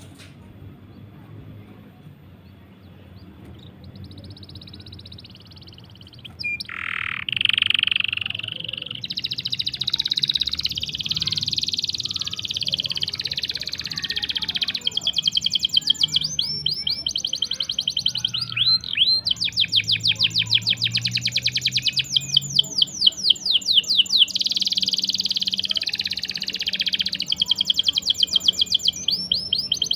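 Canary singing: chirps and long, fast trills of rapidly repeated notes. It starts faint about four seconds in and turns loud at about six seconds.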